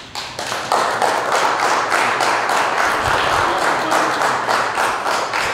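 Audience applauding: many hands clapping at once, swelling to full strength about half a second in.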